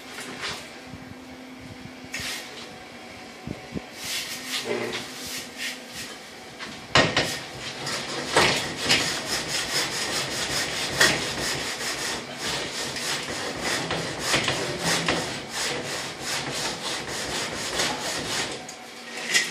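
A straightedge being scraped and rubbed against rough, freshly applied cement render, in a quick run of rasping strokes that starts about a third of the way in. Before that there are only a few quieter scrapes and knocks.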